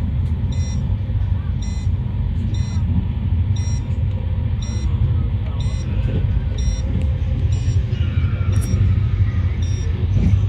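Shatabdi Express passenger coach running at about 130 km/h, heard from inside as a steady, heavy low rumble. Short high-pitched chirps repeat about once a second over it.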